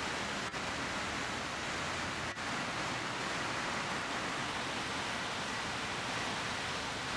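Heavy thunderstorm downpour: a steady, dense hiss of rain and hail falling, which cuts out very briefly twice.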